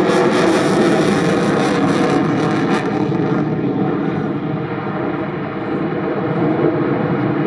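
Eurofighter Typhoon FGR4 jet fighter in flight, its twin EJ200 turbofans giving a loud, steady jet noise. The hissing top of the sound fades out about three seconds in as the jet moves away.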